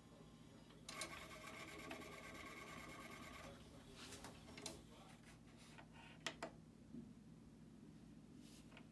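RCA CDRW120 CD recorder reading a loaded disc: the disc drive whirs steadily for about two and a half seconds starting about a second in, then gives a few light clicks as the laser mechanism seeks, before the disc's track count comes up.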